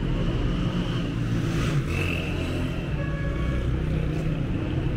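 City street traffic: cars and motorbikes driving past, their engines and tyres a steady low rumble, with a short high tone about two seconds in.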